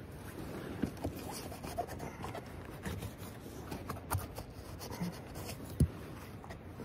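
Close handling sounds of hands and a folding knife cutting morel mushrooms out of dry, ashy forest debris: rustling and scraping with scattered small clicks, and one low thump near the end.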